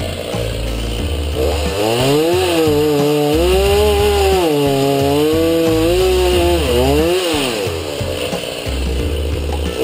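Stihl MS390 two-stroke chainsaw revving up to a high, steady pitch, dipping briefly once, then falling back near the end. Background music with a low beat runs underneath.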